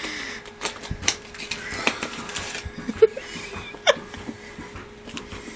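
A thick paper phone book crinkling and rustling as hands twist and strain at it in an attempt to tear it in half, with short clicks and creaks of the pages. A few short laughs are mixed in.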